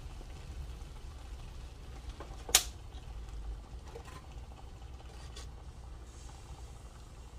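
Gravy simmering faintly in a skillet as water is poured in from a plastic bottle, over a low steady hum. A single sharp knock about two and a half seconds in is the loudest moment, with softer taps later as a slotted spatula goes into the pan.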